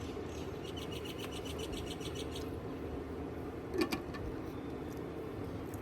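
A small bird chirping in a rapid run of high, evenly repeated notes for the first couple of seconds, over a steady low background hum. A single sharp knock, the loudest sound, comes a little under four seconds in.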